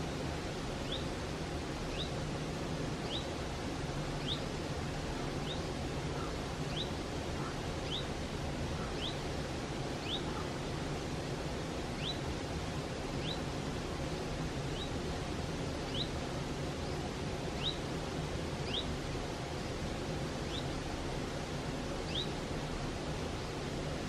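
Steady rushing of a mountain stream, with a bird repeating a short, high, downward-slurred call about once a second over the water noise.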